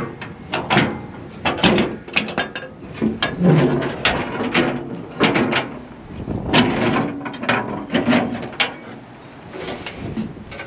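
Metal clanks and clicks from the sheet-metal engine hood of a CAT excavator being unlatched, swung up and propped open on its prop rod, with knocks of handling on the metal cover. There are several sharp clicks a second, thinning out and quieter near the end.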